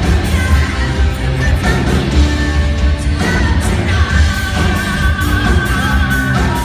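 Live band playing loudly, electric bass and electric guitar over a heavy bass line, with a woman singing into a handheld microphone.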